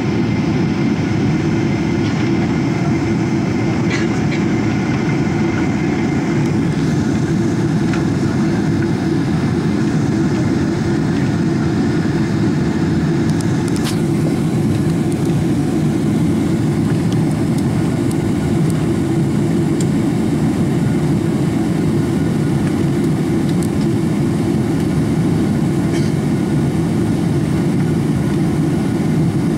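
Steady cabin noise inside a Boeing 777-300 in flight shortly after takeoff: a loud, even, low rumble of engines and airflow that does not change.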